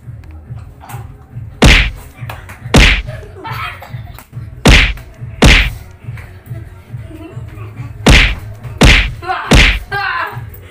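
Loud smacking hits as children strike each other in a rough slapping game, seven in all, coming in clusters of two or three about a second apart.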